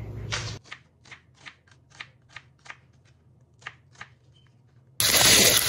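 Kitchen knife cutting a yellow onion on a wooden cutting board: about a dozen sharp chops, roughly three a second with a short pause, then they stop. Near the end, turkey Italian sausages frying in an oiled pan cut in suddenly with a loud sizzle.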